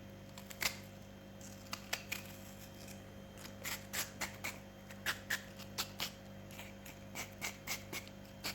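Knife chopping an onion finely by hand: irregular sharp taps and clicks, coming in quick runs of several a second around the middle and again near the end.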